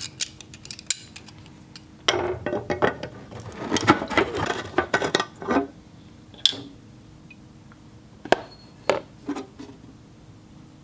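Steel tungsten holders (short chromoly tubes with a thick plate base) clinking and knocking against a container and each other as they are handled and rolled around in sealer. The knocks come thick and fast for a few seconds, then thin out to a few single knocks.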